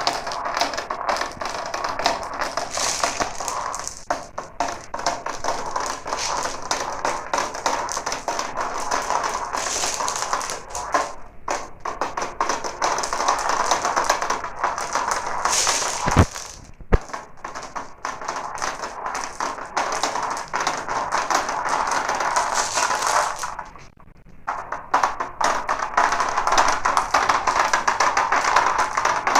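Many glass marbles rolling and clattering down a marble run, a dense continuous rattle of clicks. It thins out briefly twice, with two sharp knocks just before the first lull.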